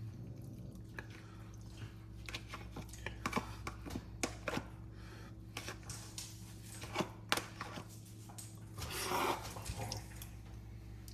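Scattered clicks, knocks and scrapes of a utensil working food in a large pan, with a louder scraping stretch near the end, over a steady low hum.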